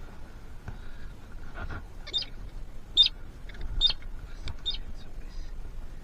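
A small bird giving short high chirps, four in a row about a second apart.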